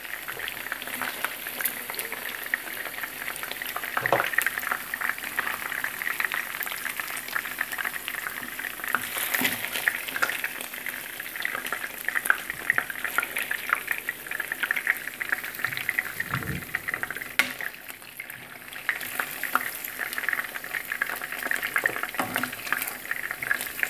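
Chicken pieces sizzling steadily as they shallow-fry in hot oil in a non-stick frying pan, with scattered sharp clicks and pops through the hiss.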